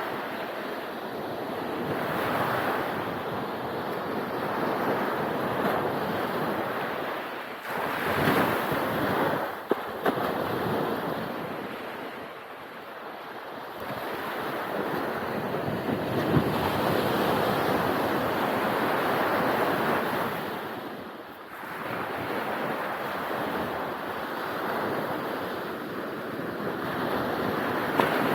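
Ocean waves breaking and washing on the beach, the surf swelling and ebbing every few seconds, with wind buffeting the microphone.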